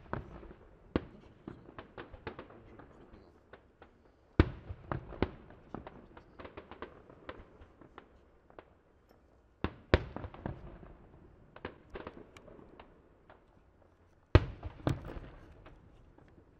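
Aerial fireworks shells bursting: three loud bangs about five seconds apart, each followed by a scatter of smaller pops and crackles.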